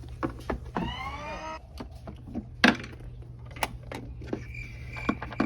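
Scattered light knocks and clicks of a toy doll and plastic dollhouse pieces being handled, the sharpest about two and a half seconds in. A short rising squeal comes about a second in, and a steady high beep starts near the end.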